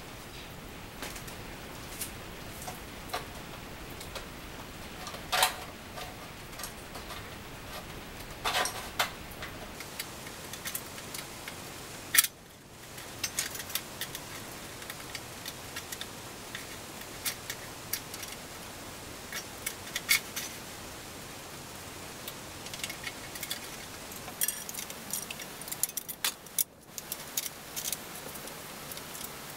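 Scattered metallic clinks, clicks and light rattles of hand tools and parts being worked at a bicycle's rear hub and axle nuts, with a few sharper knocks.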